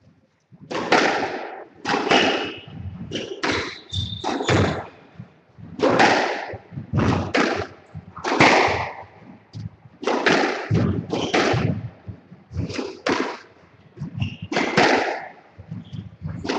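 Squash rally: the rubber ball struck by rackets and hitting the court walls, sharp cracks about once a second at an uneven pace, each echoing in the enclosed court.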